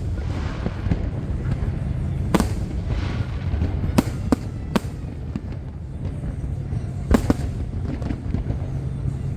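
Aerial fireworks bursting: about five sharp bangs, three of them in quick succession around four seconds in, over a steady low rumble.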